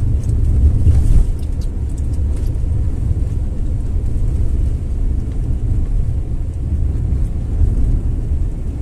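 Steady low rumble of a car driving along a road, engine and tyre noise heard from inside the vehicle.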